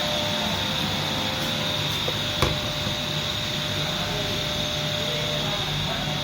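Hot plate plastic welding machine running: a steady hum with a constant high whine, and one sharp click about two and a half seconds in.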